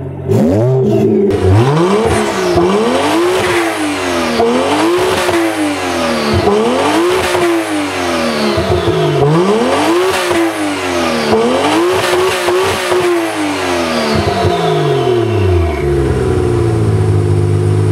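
Toyota 1JZ-GTE twin-turbo straight-six in a BMW E46, revved up and down about six times while parked, then settling back to idle near the end. The revving tests the engine with an HKS fuel cut defender newly installed.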